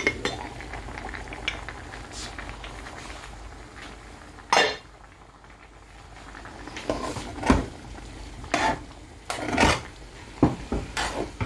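Metal cookware clattering against an aluminium cooking pot: one loud clatter about four and a half seconds in, then a run of short knocks and scrapes in the second half as a metal ladle is worked in the pot of rice.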